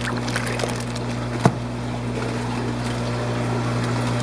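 Steady hum of aquarium pumps with water running, with one short sharp click about a second and a half in.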